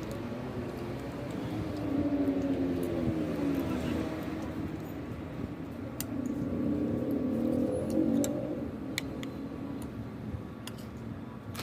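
A motor vehicle engine going by twice, its pitch slowly rising and falling over a steady low rumble, with a few sharp clicks.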